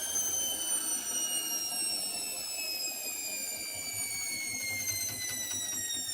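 Hotpoint WMBF742 washing machine's motor whining and falling steadily in pitch as the drum's spin slows down after the first spin. A few faint clicks come about five seconds in.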